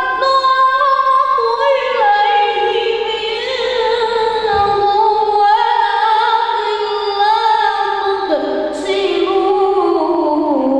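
A boy singing solo into a handheld microphone, holding long, ornamented notes that waver in pitch. About eight seconds in, the melody steps down to lower notes.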